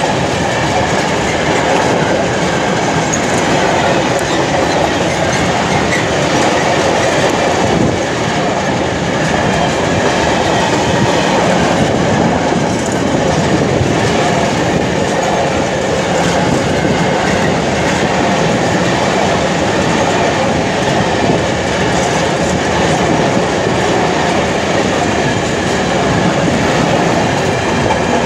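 Covered freight wagons of a long goods train rolling past close by: a steady, loud rumble of steel wheels on the rails.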